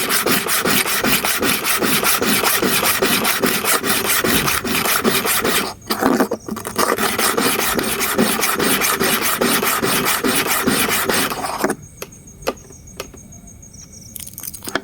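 A freshly sharpened hair-clipper blade rasps in quick, even strokes, with a short break about six seconds in. The rasping stops about twelve seconds in, leaving a few faint clicks.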